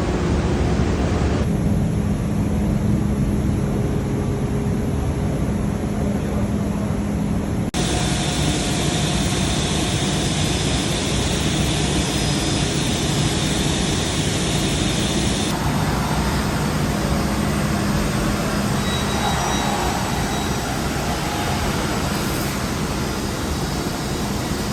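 Steady roar of running machinery with a low hum. Its character changes abruptly three times, about a second and a half, eight and fifteen seconds in.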